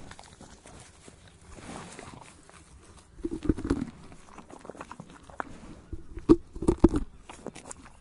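A horse chewing tree bark: irregular crunching and snapping bites, with a cluster of louder crunches about three and a half seconds in and the loudest ones near the end.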